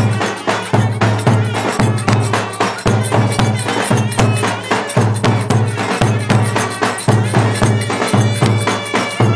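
Turkish folk dance music led by two clarinets playing a reedy melody over a steady, driving percussion beat.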